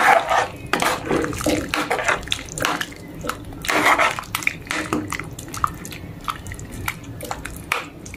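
Metal ladle stirring a pot of pork braising in thick sauce: liquid sloshing and swishing, with the ladle clinking and scraping against the pot, the stronger swirls near the start and about four seconds in.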